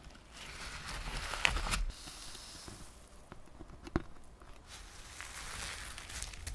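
Slime being squished and stretched by hand, making wet crackling and tearing noises in uneven bursts, with a sharp pop about one and a half seconds in and another about four seconds in.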